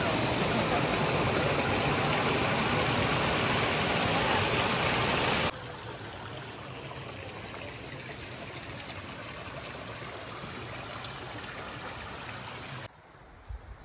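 Rushing water of a waterfall, a steady even roar. About five seconds in it cuts off abruptly to a quieter rush of water, which drops away again near the end.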